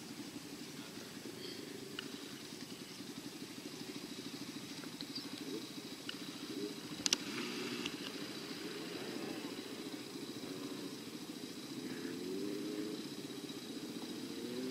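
Small dirt bike's engine idling with a steady, rapid low pulse, its pitch wavering a little near the end as she mounts. A sharp click about seven seconds in.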